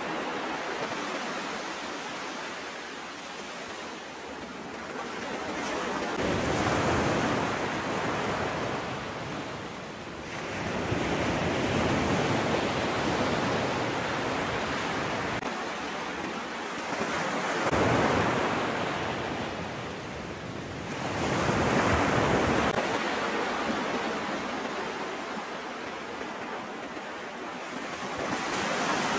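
Sea water washing and splashing against the side of a small boat, with wind on the microphone. The rush of water swells and eases in several surges.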